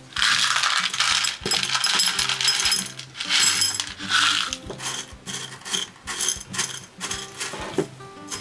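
Pumice granules rattling and clinking against glass as more drainage layer is poured into the terrarium dish, dense for the first four or five seconds and then thinning to scattered clicks. Soft background music plays underneath.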